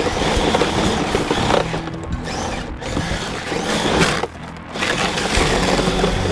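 The electric motor and gearbox of a toy remote-control snow cat running as its tracks and plow push through snow, heard up close from a camera strapped to its top, with music playing alongside. The noise dips briefly a little past four seconds.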